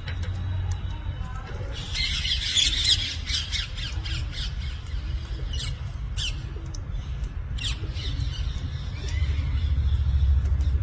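Parrot squawking: a burst of harsh high calls about two seconds in, then several short, sharp squawks, over a steady low rumble.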